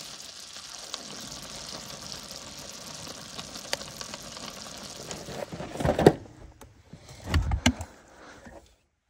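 Steady hiss of tomato sauce sizzling in a cast-iron skillet over a propane camp stove. About six seconds in come a few loud knocks, then heavy thumps, and the sound cuts off suddenly near the end.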